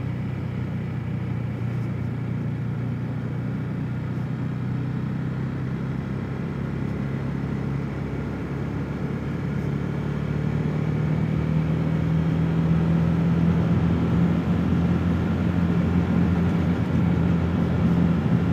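KTM 390 Duke's single-cylinder engine running steadily while the bike is ridden along the road, heard from the rider's helmet. Over the second half the engine note rises gently in pitch and gets a little louder as the bike speeds up.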